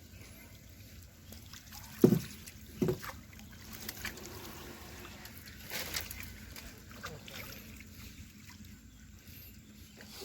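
Water sloshing and trickling, with two loud knocks close together about two and three seconds in.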